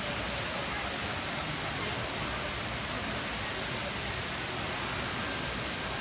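Streams of water falling from a ceiling-mounted rain-curtain fountain into its basin: a steady, even rushing hiss.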